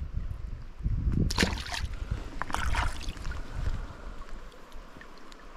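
River water splashing at close range, with two splashy bursts in the first three seconds as a small chub is let go into the water, over a low rumble of wind on the microphone.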